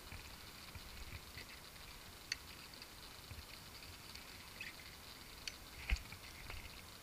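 Faint handling noise on a plastic fishing kayak: scattered light clicks and taps over a low hiss, with a sharper click about two seconds in and the loudest knock near the end.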